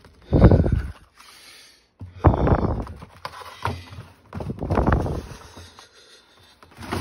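Frozen pizza cardboard box being handled and pulled against a wire freezer shelf: four short rubbing scuffs with quiet gaps between.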